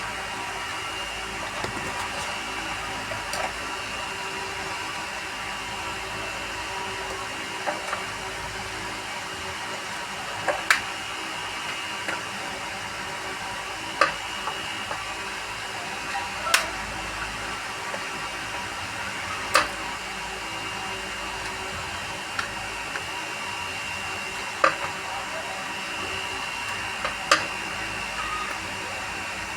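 Sharp, scattered clicks and taps as the metal and plastic casing of a set-top box and its screws are handled during reassembly, over a steady background whir with a thin high tone.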